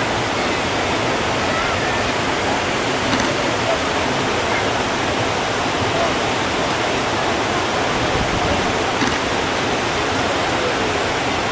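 Water pouring over a low river weir: a steady, even rush of falling water that does not let up.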